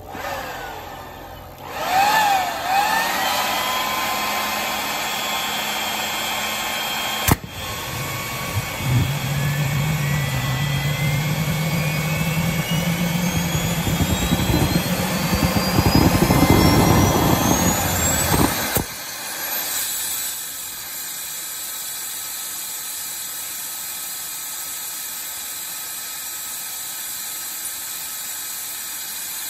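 Electric leaf blower blowing into a homemade turbojet's turbocharger compressor inlet to spin it up for starting, with the turbo's whine rising steadily in pitch for about ten seconds over a low hum, and a sharp click about seven seconds in. About nineteen seconds in the blower cuts off abruptly, leaving a steady hiss.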